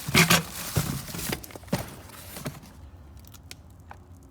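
Rustling of a plastic parts bag and a few sharp knocks as kit parts are handled. The noise dies down after about two and a half seconds, leaving a few faint ticks.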